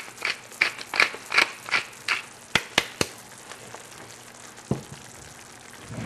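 Pepper mill being twisted over the pan, a crisp grinding in regular strokes about three a second that stops about two seconds in. A few sharp clicks follow, and one more near the end.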